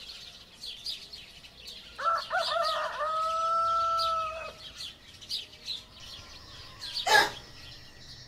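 A rooster crowing once, about two seconds in, ending in a long held note, over small birds chirping again and again. A short, sharp sound stands out near the end.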